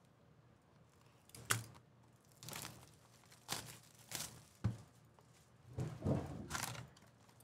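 Plastic shrink wrap being torn off a hobby box of trading cards and crinkled in the hands, with a few sharp knocks of the cardboard box being handled.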